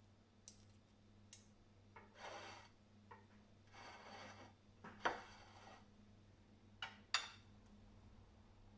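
Household items being handled: a few light clicks, two short rubbing or scraping strokes, and two sharper knocks about 5 and 7 seconds in, over a faint steady hum.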